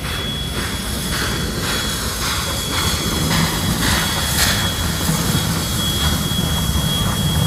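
NSWGR 59 class 2-8-2 steam locomotive 5917 passing at low speed, its exhaust chuffing about twice a second over a low rumble from the running gear. The chuffs are loudest about four seconds in, and a steady high whine runs alongside.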